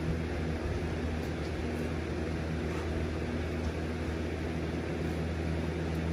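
A steady low mechanical hum from a running motor, made of several even tones, with a few faint clicks over it.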